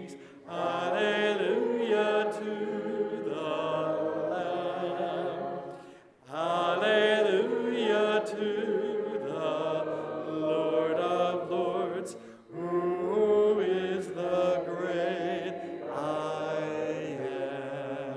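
Hymn singing without instruments, led by a man's voice, in three long phrases with short breath breaks about 6 and 12 seconds in.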